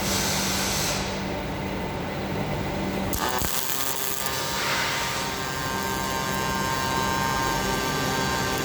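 UR10e welding cobot with MAG welding equipment running. There is a steady hum and hiss, a brief knock about three seconds in, and after that a high whine with several steady tones.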